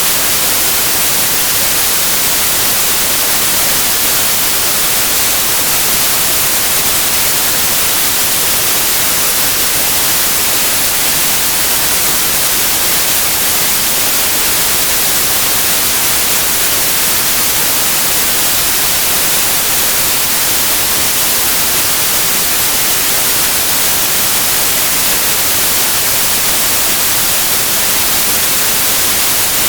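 Steady synthetic white noise: an even, unbroken hiss, strongest in the high end and thin in the bass, used as a sleep sound for babies.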